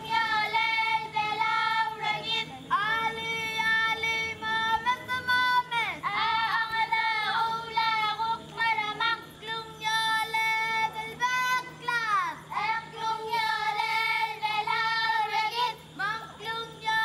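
Palauan song in high singing voices: long held notes that slide into and out of each pitch, over a low steady hum.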